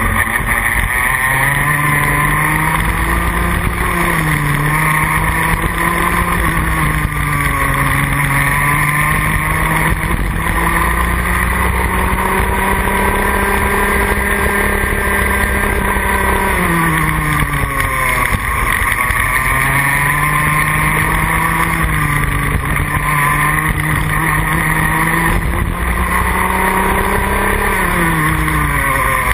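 Rotax Max Junior kart's 125 cc two-stroke engine heard from onboard at racing speed. Its pitch climbs on the straights and drops sharply under braking for corners, with two deep drops about twelve seconds apart and shallower dips between them.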